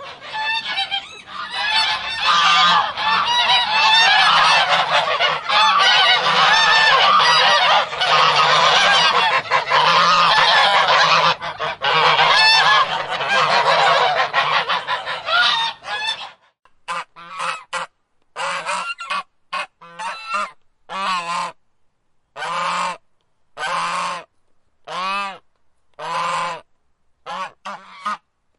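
A flock of domestic geese honking and cackling together in a dense, continuous chorus. About sixteen seconds in it breaks off, and separate honks follow, roughly one a second.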